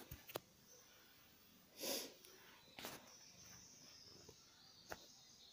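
Near silence broken by a few faint taps and a short soft rustle about two seconds in.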